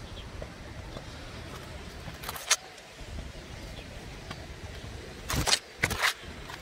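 Leaves and twigs brushing against a handheld camera's microphone: a brief rustle about two seconds in, then louder rustles near the end, over a steady low rumble.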